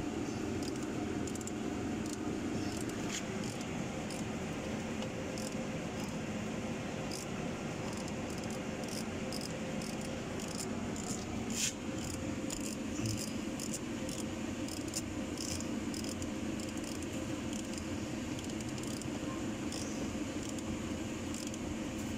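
Ratchet wrench and sockets working on bolts: scattered short metallic clicks and clinks, irregularly spaced, over a steady low hum.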